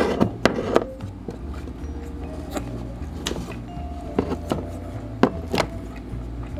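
Kitchen scissors snipping through grilled squid: a series of sharp, short snips, three close together in the first second and more spread out after that. Background music with a steady bass line plays underneath.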